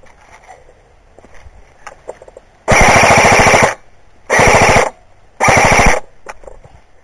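Airsoft gun firing three rapid full-auto bursts close by: the first about a second long, then two shorter ones.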